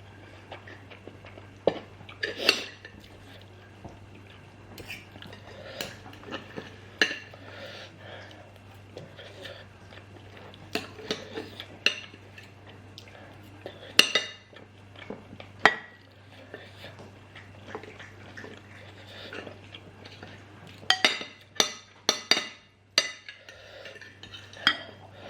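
Cutlery clinking and scraping against a plate while eating curry and rice, in scattered single clinks with a quick run of several clinks about twenty seconds in.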